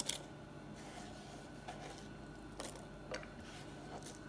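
Chopped onion pieces dropped by hand into a multicooker bowl full of vegetables: a few faint, soft clicks and taps, the clearest right at the start, over low room tone.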